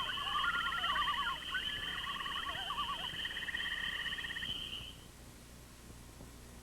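A night chorus of wild animal calls: a steady high trill, a pulsing trill and several warbling calls overlap, then fade out about five seconds in, leaving faint background hiss.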